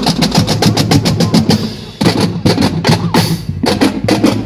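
Marching drums at a parade: snare and bass drums playing a fast, even cadence, with a brief drop-off just before two seconds in.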